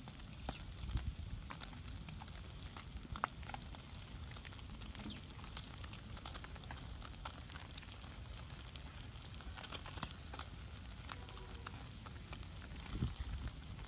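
Cooking fire crackling, with scattered sharp pops over a soft, steady sizzling hiss.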